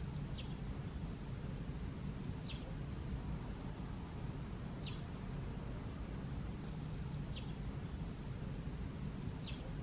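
A bird gives a short, high, falling call five times at even spacing, about every two and a half seconds, over a steady low background rumble.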